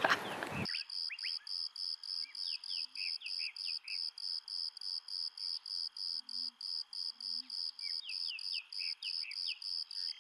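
Insects chirping in a steady, even pulse of high chirps, about three or four a second, with clusters of short sliding whistles from other animals twice. The chirping starts abruptly just under a second in, replacing louder sound.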